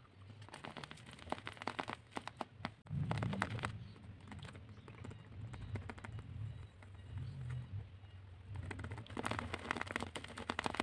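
Tape-covered paper squishy being pressed and squeezed by fingers: clusters of small crinkles and clicks come in bursts, busiest near the end, with soft low thumps of handling.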